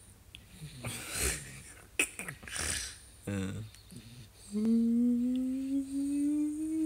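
A person humming one long 'mmm' that rises slowly and steadily in pitch, starting about four and a half seconds in. Before it come a few short rustling and breathy noises.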